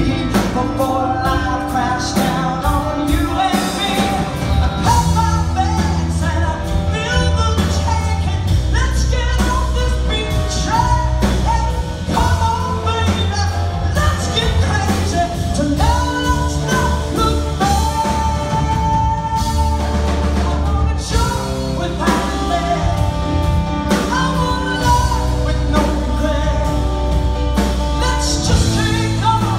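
Live rock band: a woman singing over electric guitar, bass guitar and drum kit, with a heavy bass line underneath.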